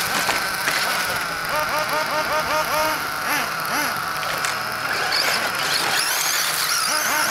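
Radio-controlled car's motor whining in short revs, about three a second: each time the pitch rises quickly and then drops back. A higher whine climbs several times near the end.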